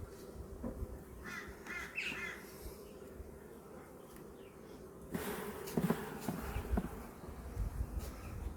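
Honey bees buzzing steadily around an open hive, with a crow cawing a few short times about a second in. Past the halfway point a stretch of rustling and scraping noise with a few knocks comes in, likely from frames being handled.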